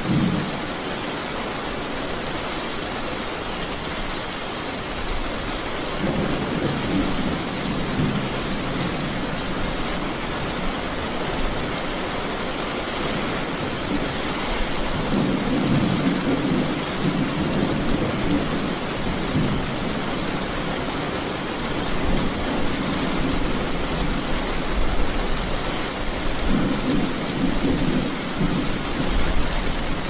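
Steady heavy rain falling, with low rolling thunder that swells up and fades three times.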